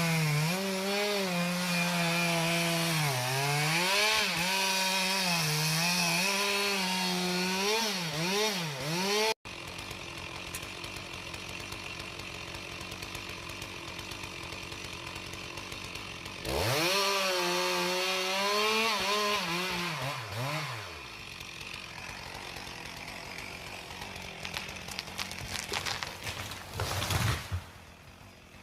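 Stihl two-stroke chainsaw cutting at full throttle, its pitch dipping and recovering as the chain bogs in the wood. After a cut about nine seconds in, it idles, is revved once up and back down, and idles again, with a few sharp knocks near the end.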